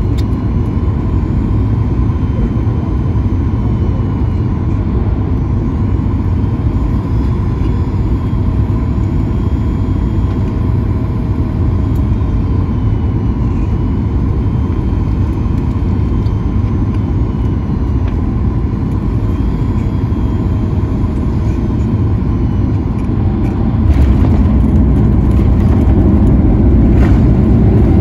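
Cabin noise inside a Boeing 737 MAX 9 on final approach: a steady rush of airflow and CFM LEAP-1B engines, with faint steady whining tones. About 24 seconds in the jet touches down and the sound turns louder, with a heavier rumble of the wheels rolling on the runway as the spoilers stand up.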